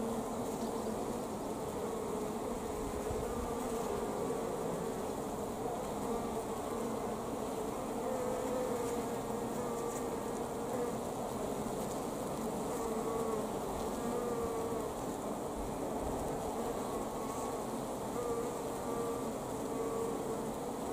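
Steady hum of many worker honeybees crowded together on a brood comb, its pitch wavering slightly as bees move.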